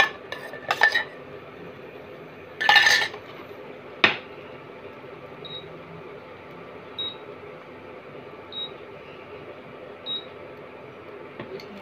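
Steel spoon clinking against a steel bowl and the tava, with a louder scrape about three seconds in. Then four short high beeps come about a second and a half apart over a steady low hum.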